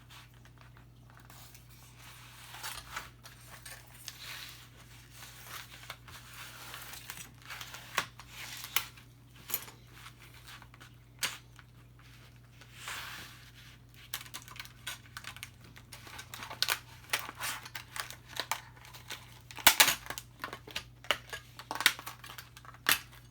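Packaging of diamond saw blades being cut and torn open by hand: irregular rustling, crinkling and tearing of plastic and card with scattered sharp clicks, busiest near the end.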